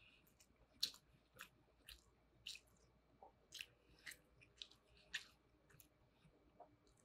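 Faint close-up chewing of a bite of spam musubi (rice, spam and nori): soft mouth clicks and smacks about two a second, thinning out near the end.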